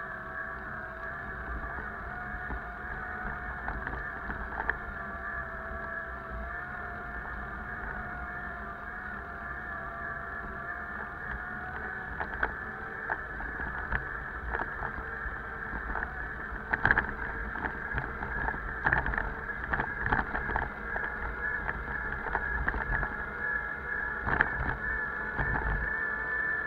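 Bicycle ride uphill, heard from a camera mounted on the bike: a steady whine of several pitches that drift slowly, low wind rumble on the microphone, and short knocks and rattles over bumps from about halfway through.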